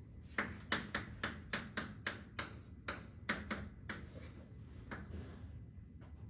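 Chalk writing on a blackboard: a quick run of short taps and scratchy strokes, about three a second, thinning out in the second half.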